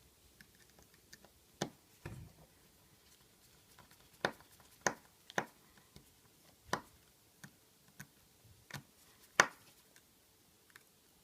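Scattered small, sharp clicks and taps, about ten at irregular intervals, from a small screwdriver working the tiny screws of the metal plate over the connectors inside an iPhone 5.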